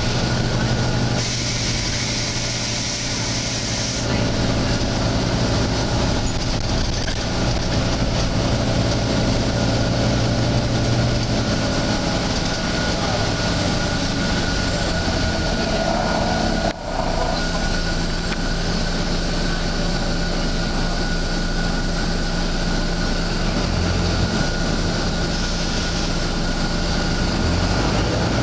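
Volvo B9TL double-decker bus's six-cylinder diesel engine and drivetrain running steadily, heard from on board, with a short hiss about a second in that lasts some three seconds.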